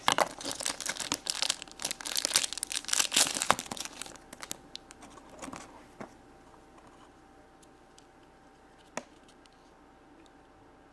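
Toy packaging crinkling, rustling and tearing as it is handled and opened, dense for the first few seconds and then dying away to a few faint clicks.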